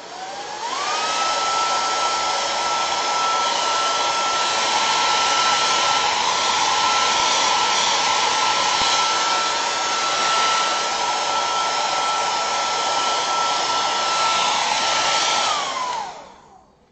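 Handheld hair dryer switched on, its motor whining up to speed within the first second, then blowing steadily with a high whine over a rush of air, drying wet decoupage glue. It winds down and stops shortly before the end.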